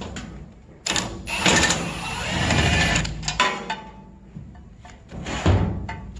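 Hand tools working loose the T50 Torx bolts that hold the hub on a Honda rear trailing arm: a mechanical rattle lasting about two seconds, then metal clicks and clanks, and another short burst near the end.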